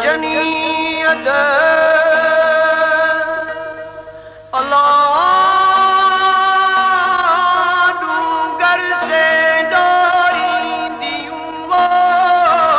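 Male Sindhi Sufi singer holding long, ornamented sung notes in three phrases, with a brief dip before the second about four and a half seconds in, over a plucked tambooro (long-necked lute) drone.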